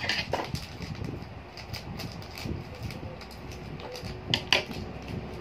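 Hands opening small plastic toy packaging: light rustling with scattered clicks, two sharper ones about four seconds in.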